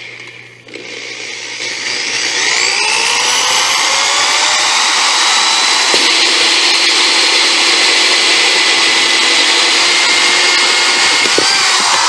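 Corded electric drill running in reverse with a hole saw bit, cutting a hole through the side of a thin plastic storage container. The motor whine rises as it spins up about a second in, holds steady with the scraping of the saw in the plastic, and drops away near the end as the bit comes out.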